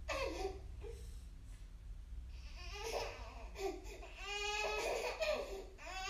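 A baby crying in short, broken sobs and whimpers rather than long wails. It eases off after about a second, then builds again in choppy cries about halfway through.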